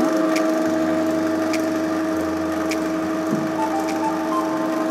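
OSSEL ML-600 electric vegetable shredder running with a steady motor hum while potato pieces are pushed onto its spinning grating disc and shredded, with a light tick about once a second.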